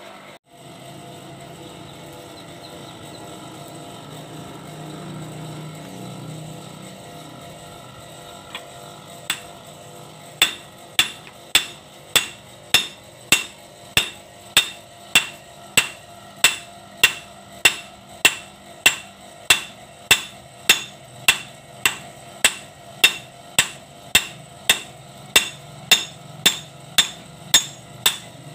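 A hand hammer forging a red-hot steel blade on an anvil: sharp, evenly paced blows, a little under two a second, each with a short metallic ring. For about the first ten seconds only a steady low hum is heard, and then the hammering starts.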